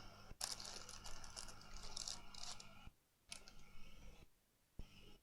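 Light clicking and scraping from hands and tools working on a laptop chassis while hot glue is applied, over a steady low electrical hum. Clusters of small clicks come in the first half, and the sound cuts out abruptly a few times.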